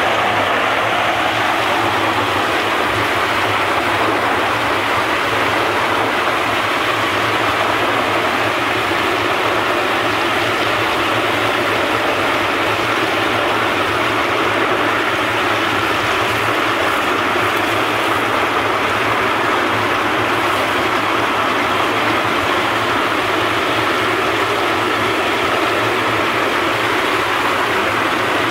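Walnut hulling machine running: a dense, steady rattle of walnuts tumbling against its grater-sheet drum and peeling blades, over a constant low hum from its electric motor and gearbox.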